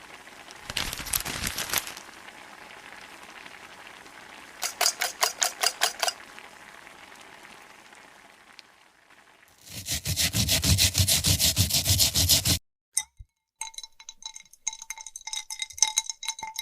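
Kitchen cooking sounds: short runs of rapid scraping or stirring strokes, the loudest from about ten seconds in, then light clinks of a metal utensil that ring briefly near the end.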